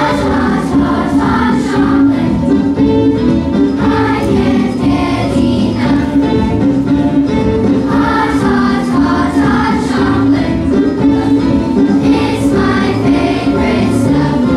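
Children's school choir singing a song.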